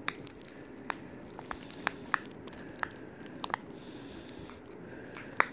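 Light, scattered clicks and soft handling noise from small plastic fidget toys and their packaging being turned over in the hands, the sharpest click near the end.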